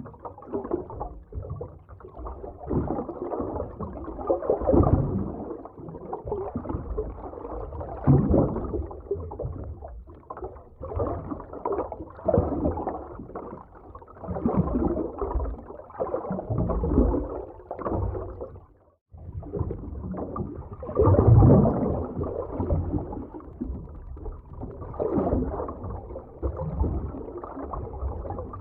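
Muffled underwater ambience: gurgling, bubbling water with low rumbling surges that swell and fade every few seconds. There is a brief near-silent break about two-thirds of the way through.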